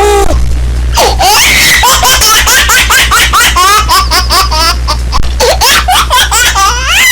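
High-pitched, rapid laughter sound effect: a quick string of short cackling bursts that rise and fall in pitch, over a steady low hum.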